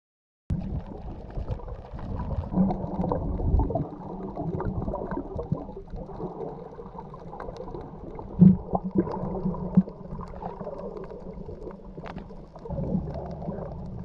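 Muffled underwater noise picked up by an action camera's microphone inside its waterproof housing: a dull, steady water rumble and gurgling with a few knocks, the loudest about eight and a half seconds in. It starts after a brief gap of silence.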